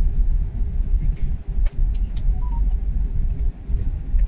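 Inside an airliner's cabin as it rolls along the runway after touchdown: a steady low rumble of engines and wheels, with a few light clicks or rattles from the cabin.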